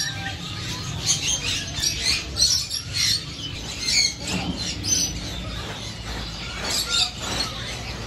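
Many caged birds chirping and squawking in quick, repeated high calls, over a steady low rumble.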